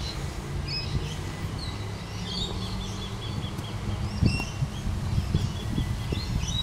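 Small birds chirping and calling again and again over a steady low rumble. A few dull knocks about four seconds in, a golf iron striking the wet turf and mud.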